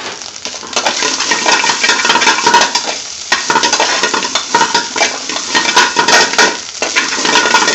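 Spinach and paneer sizzling in hot oil in a metal frying pan while they are stirred and tossed with a metal spoon, with frequent irregular scrapes and clinks of spoon on pan.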